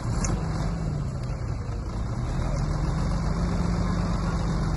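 Engine of a heavy construction vehicle running steadily at an even low pitch.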